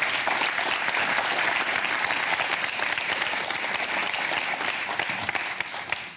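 Audience applauding, a dense crowd clapping that dies away near the end.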